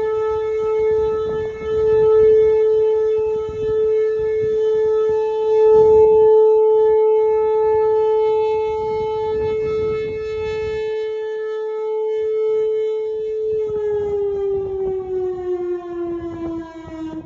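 Whelen Vortex R4 outdoor warning siren sounding a steady alert tone, its loudness swelling and fading as the rotating horn turns. From about 14 seconds in, its pitch slides down as it winds down at the end of the test.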